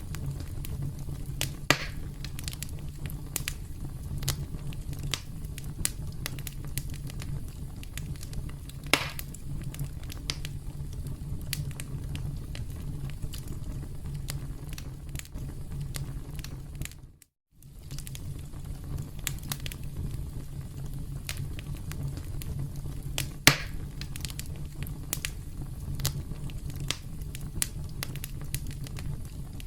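Campfire crackling, with sharp snaps and an occasional louder pop over a steady low rumble. The sound cuts out for an instant about halfway through.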